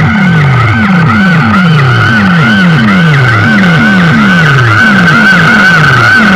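DJ competition sound system blasting an electronic track through large speaker stacks, very loud: a falling bass sweep repeats about twice a second under a high warbling tone.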